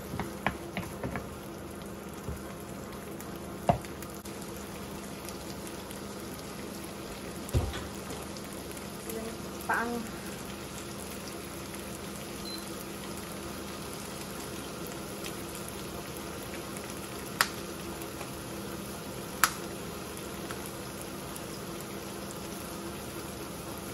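Sardines, onion and tomato sizzling steadily in a nonstick frying pan, with a wooden spoon stirring at the start. A few sharp clicks and knocks sound over the frying, including two crisp clicks in the second half.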